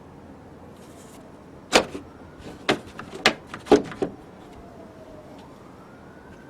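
A quick run of about six sharp clicks and knocks, hard objects striking, crowded into a couple of seconds. Near the end there is a faint whistling tone that dips and then rises.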